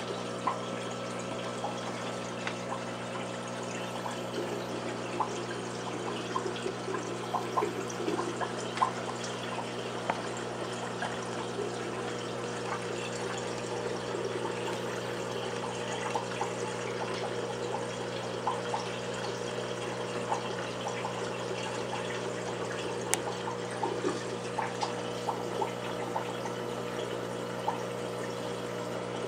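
Aquarium filtration running: water trickling and bubbling with many small pops, over a steady electrical hum from the pumps.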